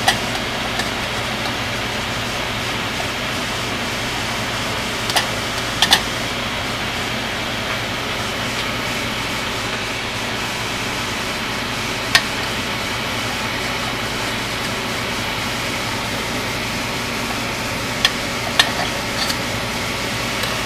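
A knife clicking sharply against a stainless steel bowl a handful of times as boiled eggs are cut in it, over a steady mechanical hum.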